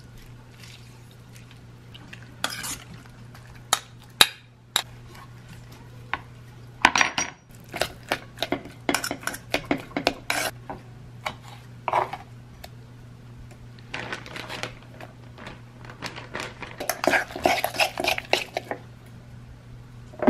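Metal spoon clinking and scraping against a stainless steel mixing bowl while salsa is stirred and avocado is mashed, in irregular bursts of clinks and knocks with two busier stretches. A steady low hum runs underneath.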